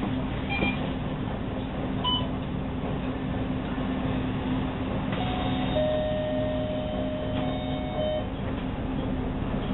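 Inside a bus, its engine runs with a steady low hum. A short electronic beep sounds about two seconds in, and a steady electronic tone is held for about three seconds from about halfway through.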